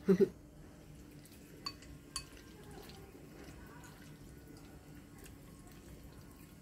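Two light, ringing clinks of chopsticks against ceramic dishware about two seconds in, half a second apart, then quiet room tone.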